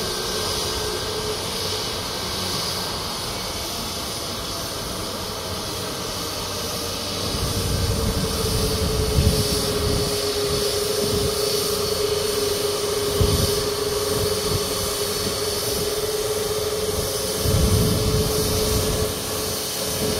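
Caribbean Airlines Boeing 737's jet engines whining steadily at low power as the airliner taxis. The whine dips slightly in pitch about five seconds in and then holds, over a low rumble that grows a little louder from about seven seconds in.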